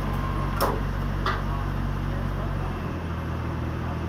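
Small truck's engine running steadily to power the hydraulics of a truck-mounted Unic mini crane; its note changes about three seconds in, as the crane controls are worked. Two sharp knocks in the first second and a half.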